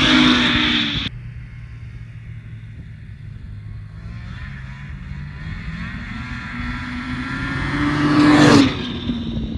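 2023 Ski-Doo Skandic 600 EFI Sport snowmobile's two-stroke engine running as the sled rides across the ice. It drops away suddenly about a second in, then grows steadily louder as it comes back and passes close near the end, its pitch falling as it goes by.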